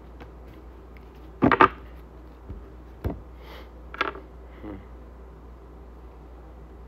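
Tarot cards handled and laid on a table: two sharp slaps about a second and a half in, then a few lighter taps and clicks, over a low steady hum.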